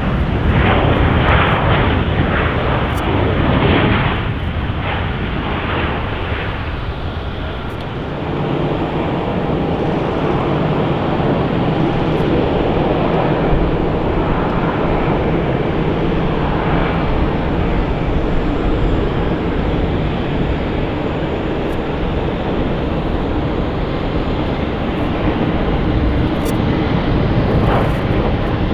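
Jet airliner engines, a loud, steady rumble that is somewhat louder in the first several seconds.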